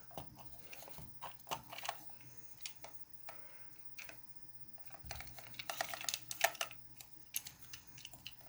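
Irregular small plastic clicks and taps as the casing of a knockoff JBL Bluetooth speaker is pried and pulled apart by hand, with a busier cluster of clicks about two-thirds of the way through.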